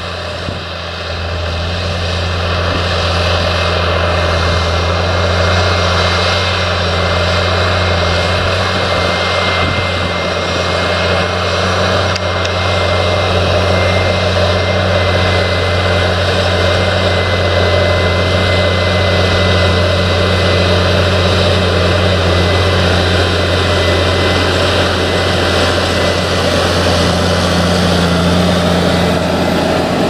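Fendt 936 Vario tractor's six-cylinder diesel engine running steadily under heavy load while pulling a nine-furrow Lemken plough through the soil, a deep even drone that grows a little louder in the first couple of seconds and then holds.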